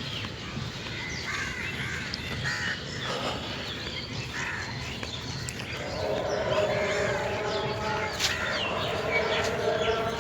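A mix of birds calling, with many short chirps throughout and a louder, lower call joining in about six seconds in.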